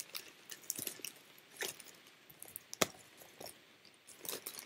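Small plastic toy being handled and taken out of its packaging: scattered soft crinkles and clicks, with one sharper click about three seconds in and a cluster of clicks near the end.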